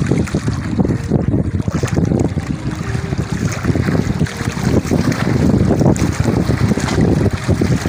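Strong wind buffeting the microphone in a loud, gusting rumble, with small sea waves washing against shoreline rocks.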